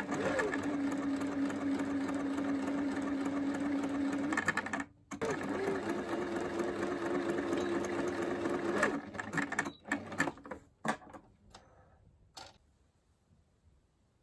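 Electric sewing machine stitching fabric: it runs steadily for about four seconds, stops for a moment, runs again for about four seconds, then gives a few short bursts before falling quiet.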